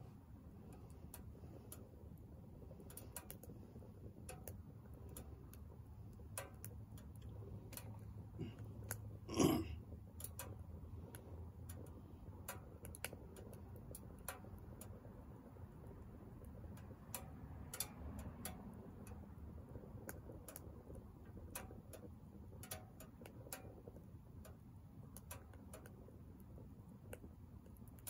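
Wood fire burning in a Soomloom MECA mini wood stove: faint, scattered crackles and ticks over a low steady rumble of the fire. About nine and a half seconds in there is one louder pop.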